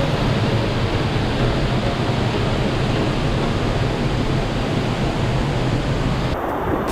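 Waterfall: the steady, even rush of falling water, cut off abruptly near the end.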